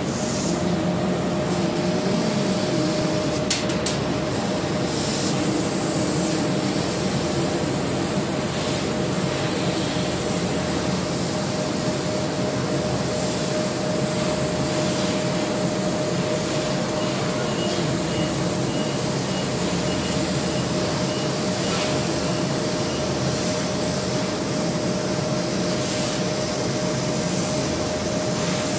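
CNC laser cutting machine cutting sheet metal: a steady hiss and machine noise with a constant hum running through, and a faint high pulsing tone for a few seconds after the middle.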